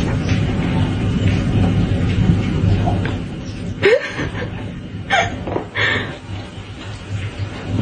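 A person chuckling softly a few times, over a steady low hum.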